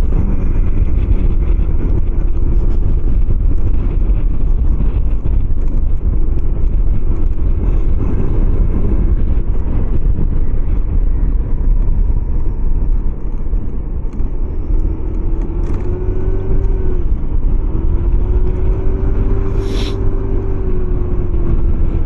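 Kymco 125cc scooter engine running at riding speed under heavy low wind rumble. Its pitch holds steady, then drops and climbs again a couple of times in the second half as the throttle eases and opens.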